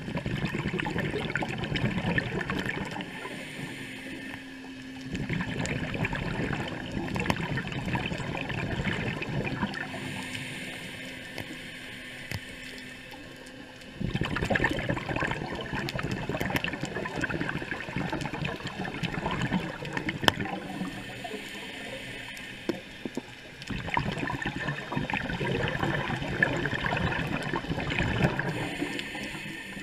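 Scuba diver's exhaled bubbles gurgling past the underwater camera in surges a few seconds long. Quieter gaps between the surges are the in-breaths through the regulator.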